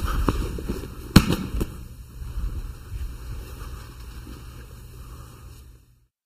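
Scuffling of two grapplers in cotton gis on a training mat during a kneeling aikido throw, with a sharp slap about a second in as the thrown partner lands on the mat, and a few smaller knocks just after. The shuffling then dies away.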